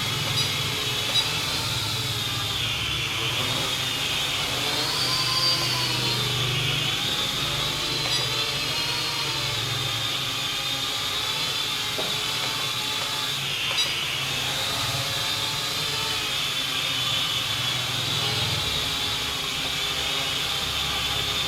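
Small toy quadcopter's geared electric motors and propellers whining steadily, the pitch rising and falling as the throttle changes.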